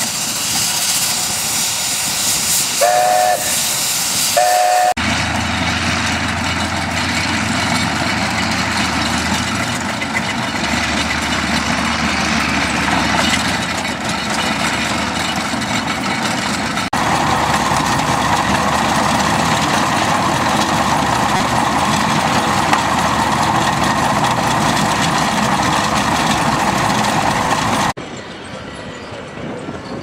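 Steam ploughing engine's whistle giving two short toots about three and four and a half seconds in, over the steady noise of steam engines working. A low engine hum runs through the middle stretch, and the noise gets louder and brighter from about seventeen seconds.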